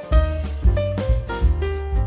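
Background music: an upbeat jazzy tune with piano-like keyboard notes over a steady beat.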